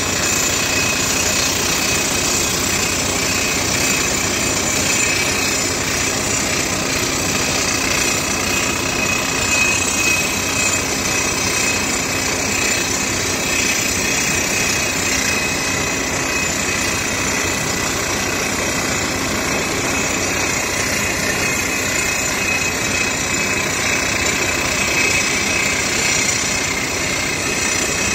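Furukawa HCR1500 crawler drill rig drilling a blast hole in rock: the rock drill hammering rapidly and steadily over the rig's engine. The sound stays loud and even throughout.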